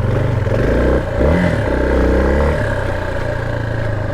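Motorbike engine idling steadily, revved up briefly and falling back about a second in.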